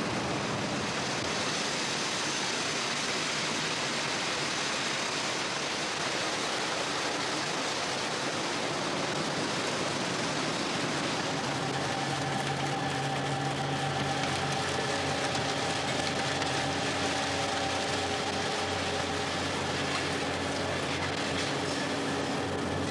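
Steady noise of fish-processing machinery running, with a faint hum joining about halfway through.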